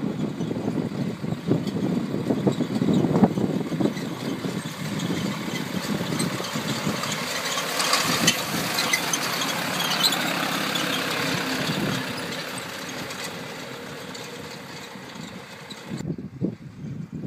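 Tractor engine running while it pulls an under-leaf sprayer through a sugar beet crop, with a broader hiss rising in the middle of the stretch and the sound fading toward the end.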